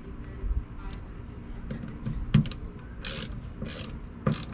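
Hand ratchet clicking in several short back-strokes as the door-hinge screws are tightened, the strokes bunched in the second half.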